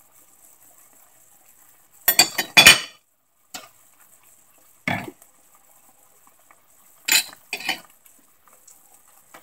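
Kitchen clatter of a metal spoon against a stainless pan and utensils being set down: a quick run of clinks about two seconds in, single knocks around three and a half and five seconds, and two more a little after seven seconds.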